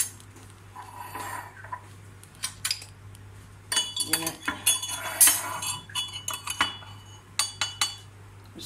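Kitchen utensils and dishes clinking and knocking in scattered groups, busiest with several ringing clinks in the middle and a few more near the end.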